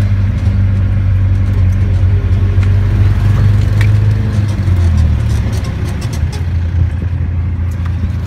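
Engine of an open-back truck running at road speed, heard from the rear bed with wind and road rush; about halfway through the engine note drops lower.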